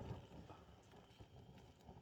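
Near silence: faint outdoor background with a few faint, scattered ticks.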